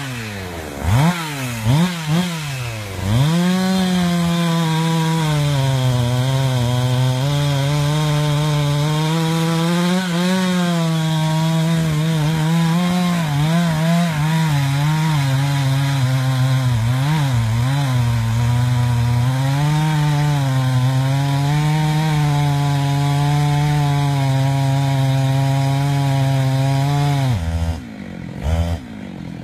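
Chainsaw revved in a few quick blips, then held at full throttle cutting into a large sweetgum trunk for over twenty seconds, its pitch sagging and recovering under the load. Near the end the throttle is let off and it drops to idle, with one more short rev.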